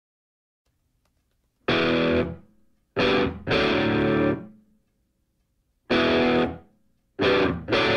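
Music: distorted electric guitar chords, played as separate loud stabs that each ring for under a second and die away, with short gaps between. It begins about a second and a half in.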